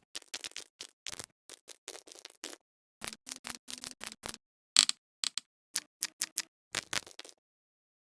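Fidget toys being handled: a fast, irregular run of short clicks and pops, some with a brief hollow tone, stopping about seven seconds in.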